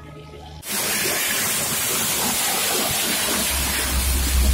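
Darjeeling Himalayan Railway steam locomotive venting steam: a loud, even hiss that cuts in suddenly about half a second in, with a low rumble building underneath near the end.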